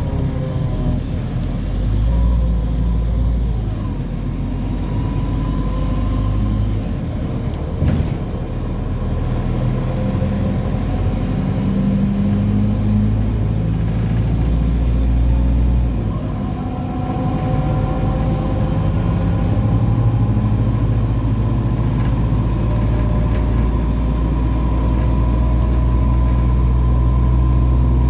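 A bus heard from on board while moving: a heavy engine and drivetrain drone, with a high whining tone that slowly rises in pitch more than once, the strange noise the bus is making. A single click about a third of the way in.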